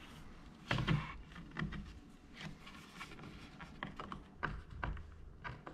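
Scattered light clicks and taps of handle hardware being handled and fitted to drawer fronts, with a louder knock just under a second in.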